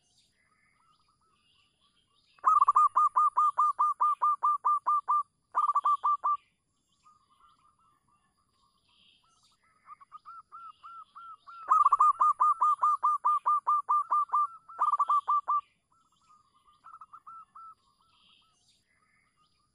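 Zebra dove (perkutut) song: two loud phrases of rapid repeated cooing notes, about seven a second, each followed by a short second run, with softer scattered notes between them.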